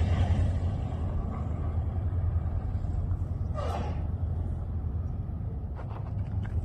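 Sand-rail buggy engine running at a steady low hum, with one brief sound that falls in pitch about three and a half seconds in.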